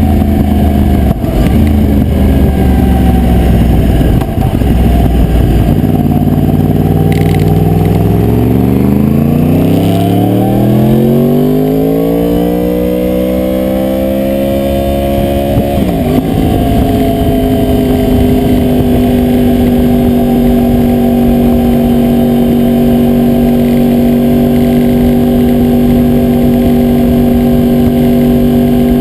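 2009 Yamaha YZF-R1's crossplane inline-four engine heard through a GoPro mounted on the bike while riding: the engine note climbs steadily in pitch from about a quarter of the way in, breaks briefly about halfway, then holds a steady pitch. The camera's adhesive mount rattles against the bike.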